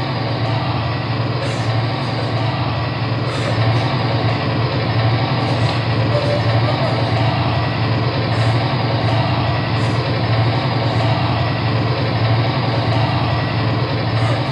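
A steady, loud low rumble with an even hiss over it, engine-like and unchanging throughout.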